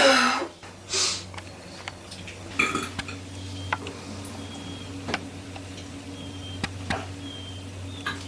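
A person burping: a loud, watery-sounding burp with a falling pitch right at the start, a second one about a second in and a weaker one near three seconds. After that come a few sharp small clicks over a low steady hum.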